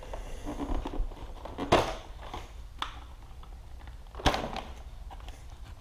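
Plastic side fairing of a Suzuki GSX-R1000 being pulled and pried off its plastic pins by hand: faint rubbing and creaking of the panel with three sharp clicks, about two, three and four seconds in.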